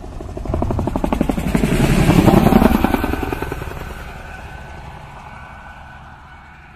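Helicopter rotor chopping in rapid pulses. It grows louder to a peak about two seconds in, then fades away as the helicopter flies off.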